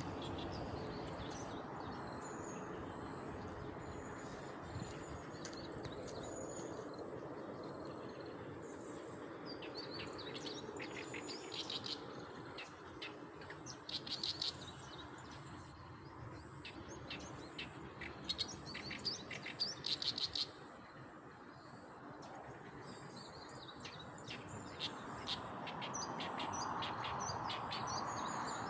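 Small birds chirping, with several quick runs of rapid high chirps in the middle stretch, over a steady low background hiss.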